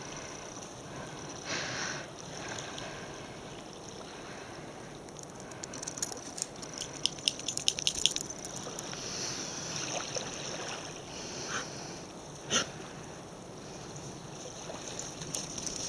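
Gentle surf washing on a sandy beach, a steady hiss, with a run of rapid crackling clicks for about two seconds midway and a single sharp tick a few seconds later.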